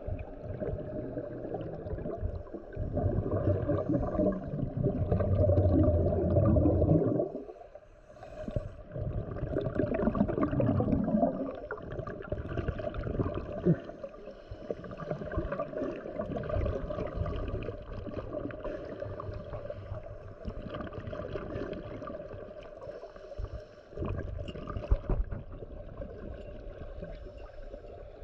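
Muffled underwater bubbling and gurgling from scuba breathing through a regulator, heard underwater, swelling and fading in surges of a few seconds with the exhalations. A single sharp knock comes near the end.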